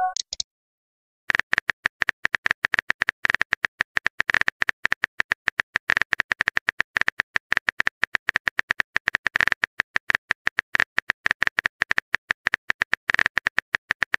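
Rapid keyboard-typing clicks of a texting sound effect, several a second in an even run, starting about a second in after a brief gap.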